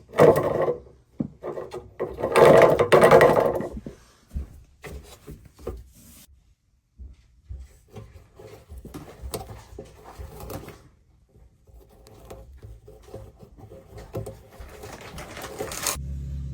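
Irregular scraping, rubbing and knocking from work on a clothes dryer, loudest in the first few seconds, with scattered clicks after. A steady low hum starts near the end.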